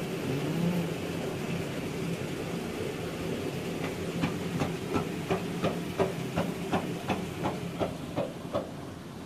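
Sharp, regular taps, about three a second, of a chisel striking oyster shells, starting about four seconds in and stopping shortly before the end, over a steady low engine hum.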